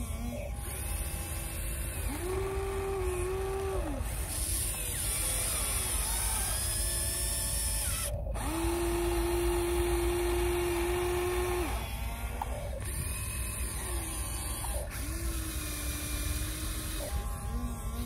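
Electric motors of a Huina radio-controlled scale excavator whining as the boom, arm and bucket are worked. The pitch rises, holds and drops again with each movement, several times, the longest for about three seconds in the middle.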